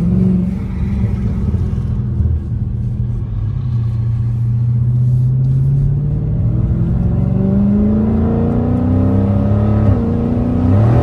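Exhaust of a 2020 Dodge Scat Pack's 392 (6.4-litre) Hemi V8 with the mid muffler deleted: it runs steadily, then revs up as the car accelerates, with a short drop in pitch near the end before it climbs again.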